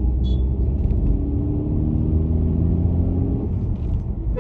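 Car engine and road rumble heard from inside the cabin. The engine note climbs steadily as the car accelerates past a truck, then eases off about three and a half seconds in.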